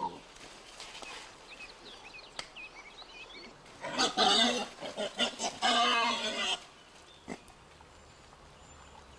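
Faint bird chirps, then about four seconds in a run of loud, harsh animal calls that lasts about two and a half seconds.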